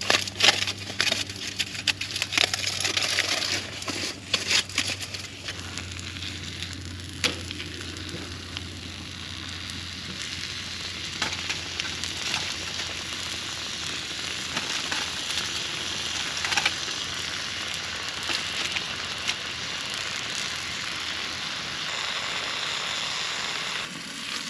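A thin venison burger patty sizzling steadily as it fries in a frying pan. In the first few seconds there is crinkling and clicking of aluminium foil being unwrapped.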